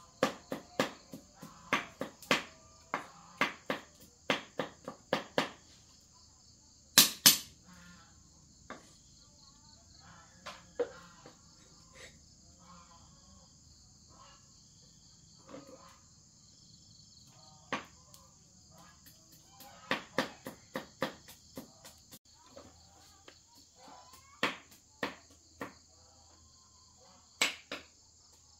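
Steady high-pitched insect chorus, with irregular sharp knocks and taps over it; the loudest is a pair of knocks about seven seconds in.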